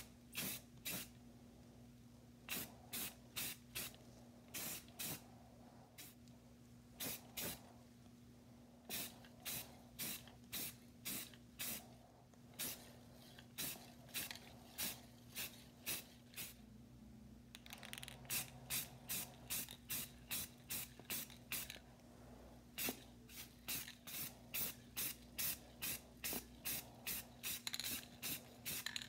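Aerosol spray paint can spraying red paint onto a masked plane lever cap in dozens of short spritzes, one to three a second, coming faster near the end.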